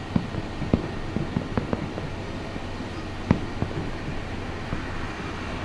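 Distant fireworks going off: irregular dull bangs of aerial shells, the loudest about three seconds in, over a steady background of city noise.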